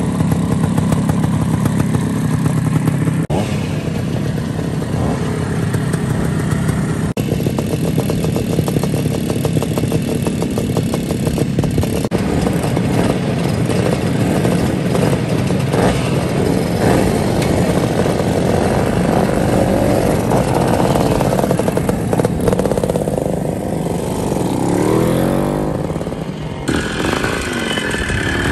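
Classic Bultaco and Montesa two-stroke motorcycle engines running in a string of short clips, the engine sound changing abruptly at each cut. Near the end an engine is revved, its pitch rising and falling.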